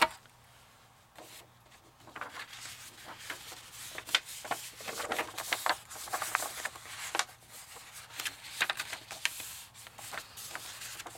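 Patterned paper being folded into an envelope by hand: irregular rustling, crinkling and creasing of the sheet, with many small taps and clicks against the punch board. A sharp click at the very start.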